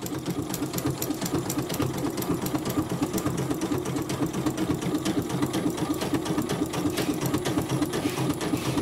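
CNY portable computerized embroidery machine stitching a letter into thick fabric, with a rapid, even run of needle strokes.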